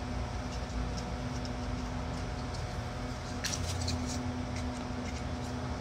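Steady low hum of workshop background noise, with a short cluster of light clicks and taps about three and a half seconds in as wooden frame pieces are handled and fitted together.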